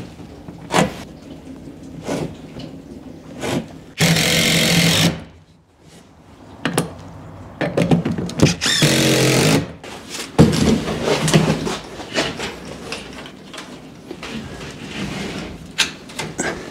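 Power drill running in short bursts of a second or two, with sharp knocks of wood being handled between them.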